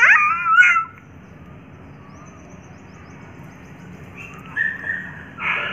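A toddler's high-pitched squeal, its pitch sliding up and down, lasting about a second. Then a quieter stretch with faint high chirps in the background.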